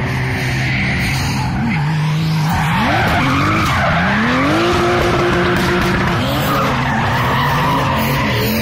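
Drift car's engine revving hard while its tyres screech in a long sideways slide; the revs climb steeply, hold high for about a second and a half, then drop and bounce up and down with throttle blips.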